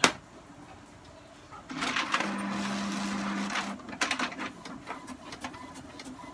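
HP DeskJet GT 5810 inkjet printer's mechanism working: a sharp click at the start, then about two seconds in the feed and carriage motor runs with a steady hum for about two seconds, followed by a few clicks.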